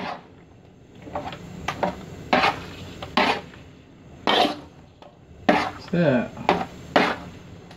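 A spatula scraping and stirring thick blended peanut sauce in a wok, in separate scrapes about once a second against the pan. The sauce is a stiff paste, like clay, being cooked down.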